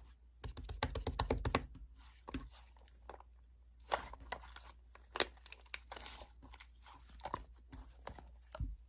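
Slime being squeezed and worked by hand, crackling and popping in a quick cluster of clicks near the start, then scattered pops and crackles.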